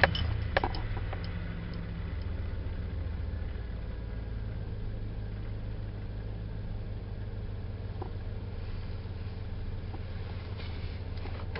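Chevrolet Silverado 2500HD pickup engine idling steadily, heard from inside the cab. It runs a little higher for the first couple of seconds after being started, then settles.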